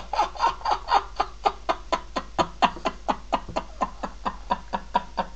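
A man laughing in a long, even run of short 'ha' pulses, about four or five a second.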